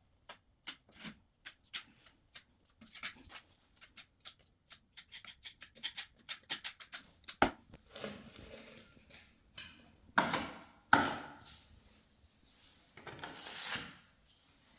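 Trowel working bonding compound into the gap around a flush socket box in a chiselled wall: rapid small taps and clicks, then several longer scraping strokes.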